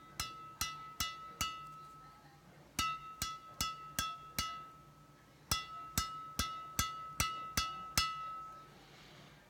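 Badminton racket string bed, Jnice JS-70 Titanium strung at 29 by 31 pounds in a Yonex Arcsaber Z Slash, tapped in three quick runs of about four to seven strikes each. Each strike gives a crisp, high ringing ping, the string-bed sound players check to judge the tension of a fresh stringing.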